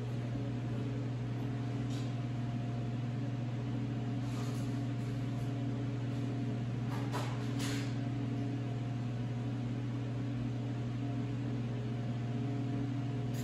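Steady low machine hum with a few faint light clicks and taps, a small cluster of them about seven seconds in.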